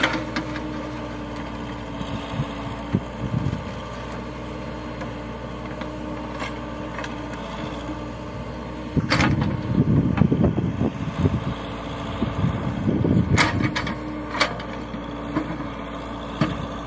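Backhoe loader's diesel engine running steadily while its rear bucket digs in a heap of rock and soil. About nine seconds in, and again a few seconds later, rock grinds and clatters against the bucket, with a few sharp clanks.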